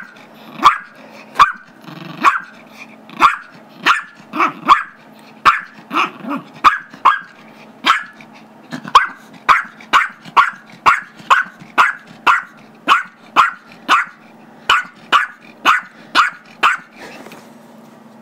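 Small Chihuahua/Yorkie mix barking over and over, sharp high barks at about two a second, with a few low growls between them; the barking stops about a second before the end. The dog is demanding the squeaky toy the other dog holds.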